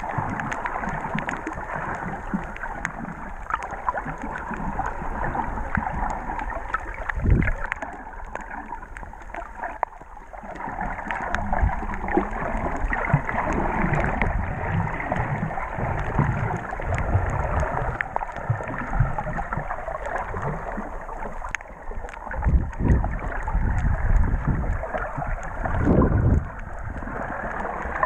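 Muffled underwater water noise picked up through an action camera's waterproof housing while snorkeling: a steady rushing wash with a few low thumps, one about a quarter of the way in and several near the end.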